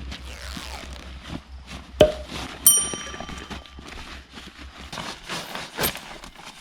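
Rustling and handling sounds with a few sharp knocks, one of which, about two and a half seconds in, is a bright metallic clink that rings briefly like a small bell.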